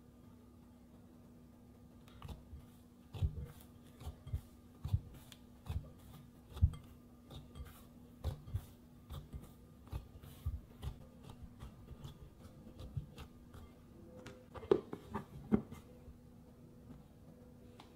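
Bread dough being kneaded by hand in a glass bowl: soft dull thumps, one or two a second, as the fist presses the dough down against the bowl. Near the end come a few sharper clicks as a plastic lid is pressed onto the bowl's rim.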